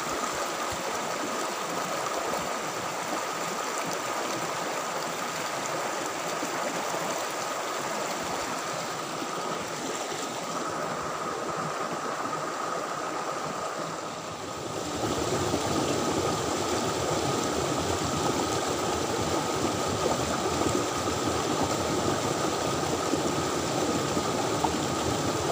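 Fast-flowing stream water rushing steadily over rocks. About halfway through it becomes louder and fuller, with water tumbling over a small rocky cascade.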